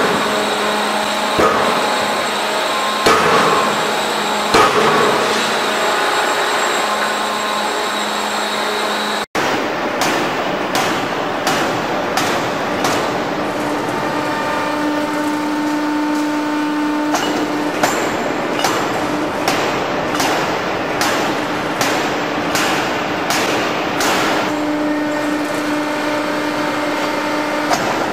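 Heavy industrial forging hammers striking red-hot steel, blow after blow over a steady machine hum. The first hammer, a hydraulic die-forging hammer, strikes about every second and a half. After a sudden change a third of the way in, a second open-die forging hammer strikes faster, about one to two blows a second.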